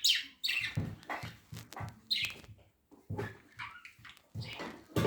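Pet budgerigar chattering in a rapid run of short, irregular calls.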